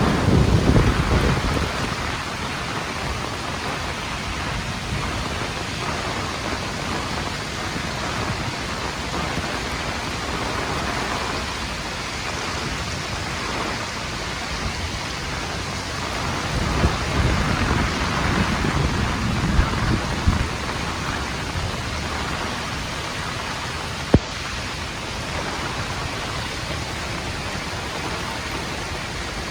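Heavy rain pouring down in a windstorm, a steady hiss of downpour. Low rumbling swells come at the start and again past the middle. One sharp click sounds near the end.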